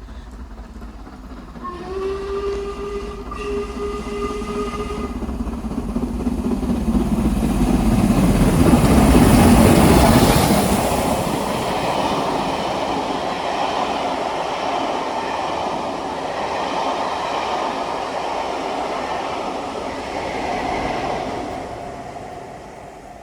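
A diesel train sounds its horn for about three seconds as it approaches, then passes close by. The noise builds to a peak about ten seconds in, runs on as a steady rumble and rattle of the passing train, and fades near the end.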